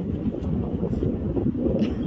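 Wind buffeting the phone's microphone, a steady low rumble.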